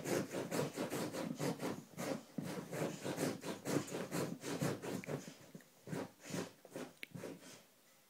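A chow chow puppy digging at bedding on a bed, its paws making quick, rough scratching strokes against the fabric, several a second. The scratching stops shortly before the end.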